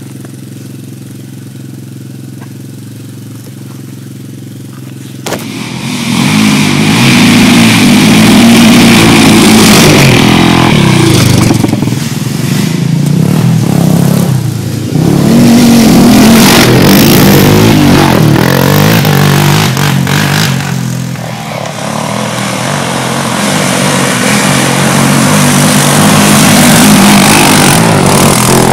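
Single-cylinder four-stroke sport quad engines, a Honda 300EX and a Kawasaki Mojave, idling steadily at first. About five seconds in they rev up, then run hard under throttle, the pitch rising and falling as the riders gas and let off.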